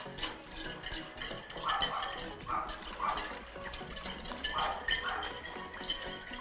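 A dog barking in the background, several short barks coming in pairs, over light clinks of a cooking utensil against a pan.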